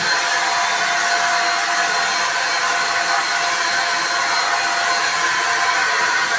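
Ingco corded electric paint spray gun running steadily: a constant motor whine over the hiss of air and atomised finish.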